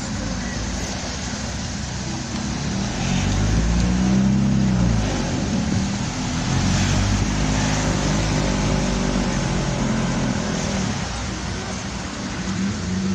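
Car engine running with road noise while driving, the engine note rising and then falling as it pulls harder around four seconds in.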